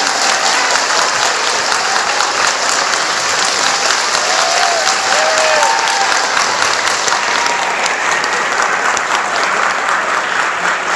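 Large audience applauding, a dense crackle of many hands clapping, with a couple of short calls from the crowd about four to five seconds in; the clapping eases slightly toward the end.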